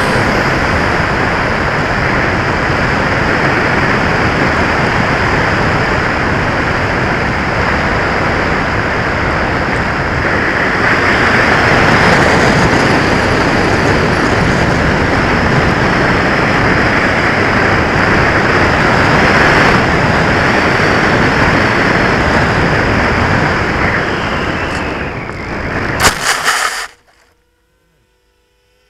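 Steady rushing of airflow over the onboard camera of a Bixler 2 foam RC plane gliding with its motor cut out by a flat battery, with a thin steady high tone underneath. Near the end the plane touches down in grass with a few quick knocks and the rushing stops abruptly.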